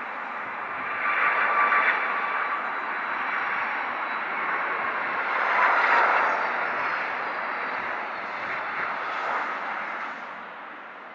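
Boeing 757 twin jet engines on landing approach and passing close over the runway: a steady jet rush with a thin high whine. It is loudest about a second and a half in and again around six seconds in, as the whine drops slightly in pitch, then fades near the end.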